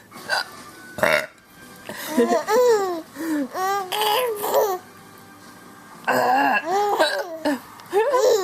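An adult gives a short hiccup-burp about a second in, brought on by a bout of hiccups. A four-month-old baby then laughs in two bursts of high squeals that slide up and down in pitch, with a third starting near the end.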